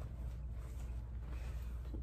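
Quiet room tone: a steady low hum with a few faint, soft noises over it.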